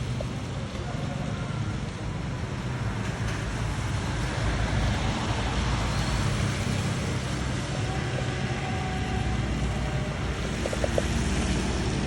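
Steady vehicle road noise: a low rumble with a hiss over it, swelling slightly a few seconds in and again near the end.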